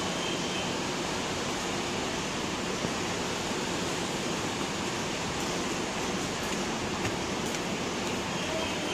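Steady, even hiss of background noise, with two faint clicks, about three seconds in and about seven seconds in.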